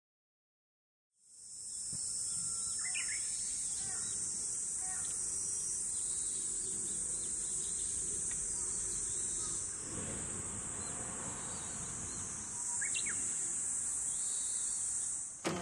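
Steady, high-pitched chorus of summer insects fading in after a second of silence, with a couple of short bird chirps. A brief clatter right at the end.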